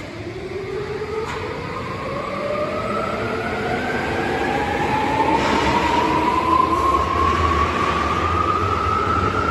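Tokyo Metro 17000 series subway train pulling away from an underground platform. Its inverter traction-motor whine rises steadily in pitch as it accelerates, in two tones, the upper one dropping out about halfway, over a rumble of wheels that grows louder.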